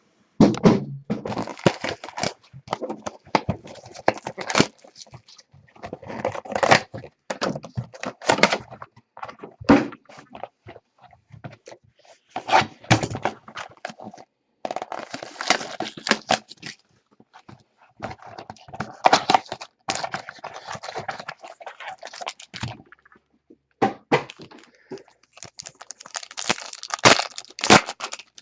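A box of sports cards being opened by hand: cardboard and pack wrappers tearing and crinkling in irregular rustling spurts, with sharp knocks and thunks of the box and packs being handled.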